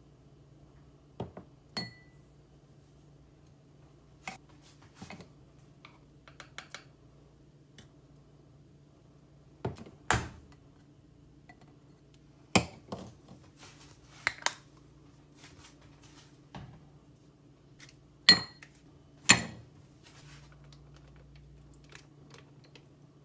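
Spoon, glass jar and drinking glass clinking and knocking as a drink is put together, in scattered sharp strokes. The two loudest come about a second apart near the end. A faint steady hum runs underneath.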